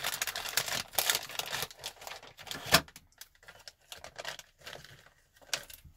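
Plastic packaging bag crinkling and rustling as a small electronic module is unwrapped by hand, with a sharp knock a little under three seconds in and lighter handling clicks after.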